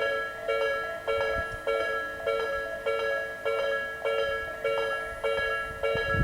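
Level crossing electronic warning bell at Tobu Isesaki Line crossing No. 127, sounding the slow-tempo Nikko Line type chime: evenly repeated ringing strikes a little under two per second, each fading before the next.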